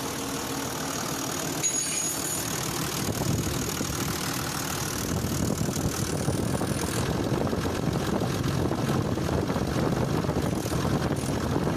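Toyota Land Cruiser 80 series diesel engine running cold with a steady, fast knocking clatter, a little louder about five seconds in. A cold-engine knock of this kind can come from a bad fuel injector, low compression or poor maintenance.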